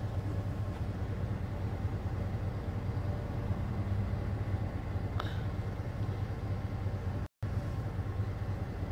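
Van engine idling with a steady low hum, broken by a split-second gap about seven seconds in.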